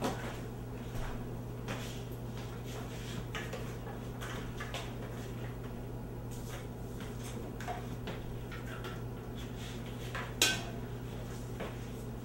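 Scattered light clicks and knocks as an electric guitar is handled and its strap put on, over a steady low hum; one sharper knock comes about ten seconds in.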